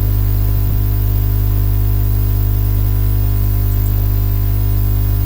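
Steady electrical hum and hiss from the recording chain, unchanging throughout: a strong low mains-type hum with a stack of steady overtones and a layer of static.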